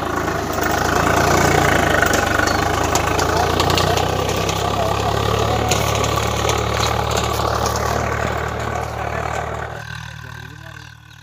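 Swaraj 742 FE tractor's three-cylinder diesel engine running steadily under load while pulling a cultivator through ploughed soil. The sound thins out and fades near the end as the tractor moves off.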